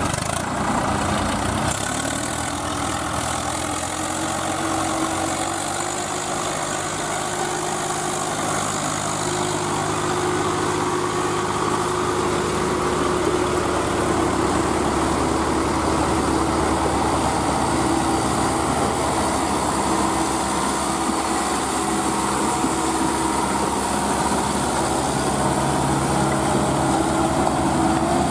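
Several diesel farm tractor engines running together under load as they haul a stuck tractor through deep mud, a steady hum whose pitch shifts slightly now and then.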